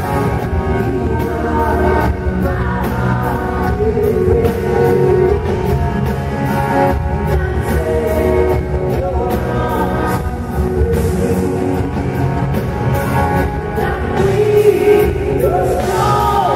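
Live country-rock band performing, with a woman singing lead over electric guitar and a steady drum beat.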